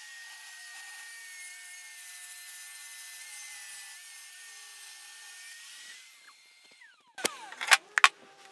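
Table saw with a combination blade running and ripping a rough board's edge, a steady high whine with cutting hiss. Near the end the saw is switched off and its pitch falls away quickly, followed by a few sharp clicks.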